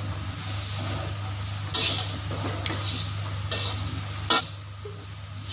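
A spatula scraping and stirring vegetables and grated coconut around a dry metal wok, with several sharper scrapes against the pan. A steady low hum runs underneath.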